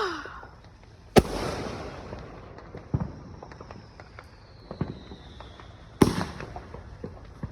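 Fireworks going off in the surroundings. Two sharp loud bangs, one about a second in and one near the end, each followed by a rumbling tail, with fainter pops in between.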